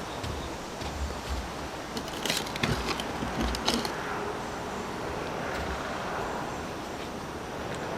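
Steady rushing noise of typhoon wind and rain, with gusts buffeting the microphone. A few sharp clatters come about halfway through.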